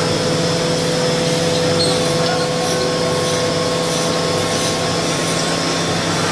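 Mazak VTC 300C CNC vertical machining center running: a steady mechanical hum and whine with constant tones, and a higher tone joining about two seconds in.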